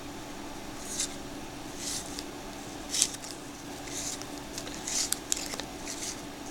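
1992 Donruss baseball cards being thumbed through, each card sliding off the stack with a soft papery swish about once a second, over a faint steady hum.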